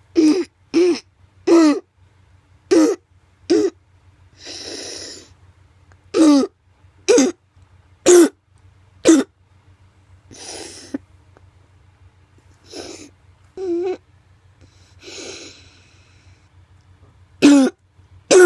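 A child's barking croup cough: about a dozen short, harsh, pitched coughs in irregular clusters, with noisy breaths drawn between them. The bark comes from swelling around the voice box and windpipe.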